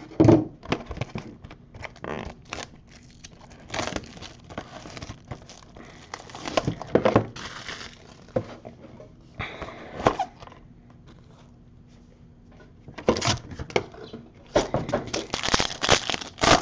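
Plastic wrap crinkling and tearing, with scattered rustles and light knocks, in short bursts with a quieter pause about two thirds through: a sealed trading-card box being opened and handled.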